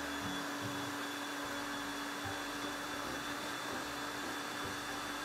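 Countertop electric blender running steadily, a constant motor hum and whir as it churns a liquid cake mixture.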